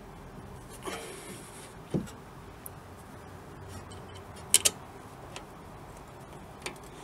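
A few scattered clicks and knocks from tools and brake caliper parts being handled while the caliper is refitted: a scrape about a second in, a dull knock at about two seconds, and a sharp double click a little past halfway, the loudest.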